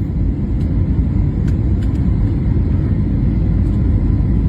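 Strong wind buffeting the microphone: a loud, continuous low rumble that flutters unevenly, with no speech or engine tone in it.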